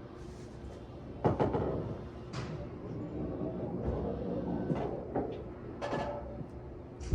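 A few scattered knocks and clatters over a steady low hum, the sharpest about a second in and a loud one at the very end.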